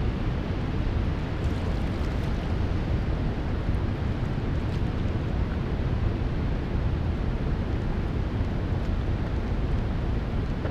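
Steady rushing noise of river water at a dam, mixed with wind buffeting the microphone.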